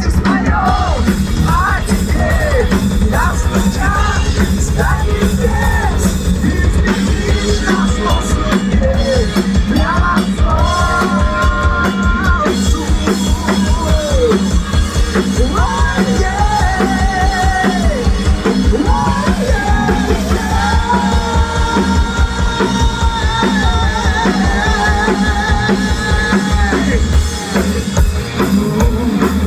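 Live heavy rock band playing loud, with drums and bass under a wavering, bending lead melody and no words sung.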